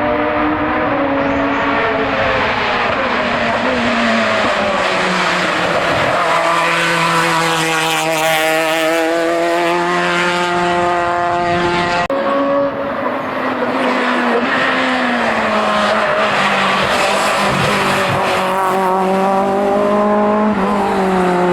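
Race car engine on a hillclimb run, revving hard and changing gear, its pitch climbing and then dropping back several times.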